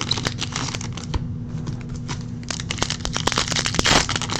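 Crinkling and rustling of a trading-card pack wrapper and cards being handled: a dense run of small crackles and clicks, with a faint low steady hum underneath.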